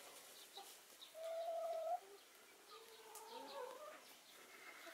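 Hens giving soft, faint calls: one steady held note about a second in, then a quieter wavering call that rises and falls a little later.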